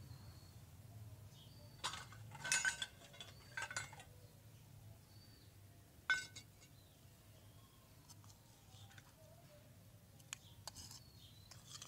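Small metal spoon clinking against a miniature stainless-steel bowl in a few short clusters of clinks with a brief ring, about two seconds in, again around six seconds in, and near the end.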